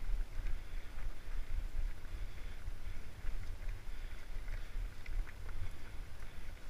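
Wind and movement rumbling on the microphone of a camera riding along a dirt track, with a light crackle of tyres rolling over loose grit and gravel.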